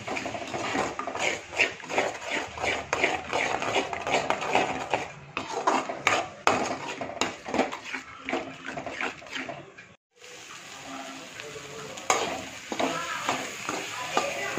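A spoon stirring and scraping eggs through prawn thokku in a metal kadai, in quick repeated strokes against the pan as the eggs scramble. The sound breaks off abruptly about ten seconds in, then the stirring continues more softly.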